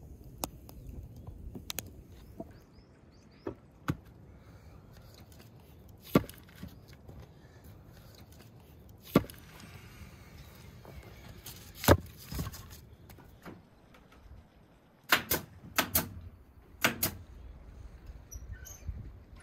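Sharp wooden knocks and clacks, about ten spread irregularly, some in quick pairs, as of split firewood logs being handled and knocked together.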